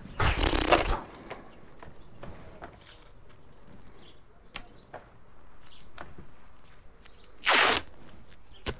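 Masking tape being pulled off the roll and pressed onto a cardboard template. There are two loud ripping noises, one right at the start and a half-second one near the end, with light handling taps and a sharp click between and after.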